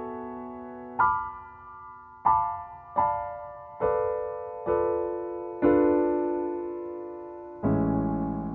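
Solo piano introduction: chords struck one after another, each left to ring and fade, seven in all at an unhurried pace. The last one, near the end, is fuller and has a low bass under it.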